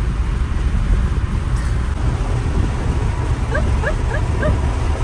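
Car cabin road and engine rumble while driving. From about three and a half seconds in there is a quick run of short, rising high-pitched yelps, about three or four a second.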